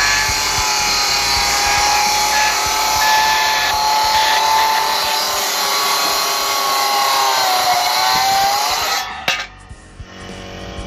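Handheld circular saw cutting through green oak, its blade whine sagging in pitch under load and recovering near the end of the cut. About nine seconds in the sound cuts off sharply as the cut finishes and the saw is lifted away.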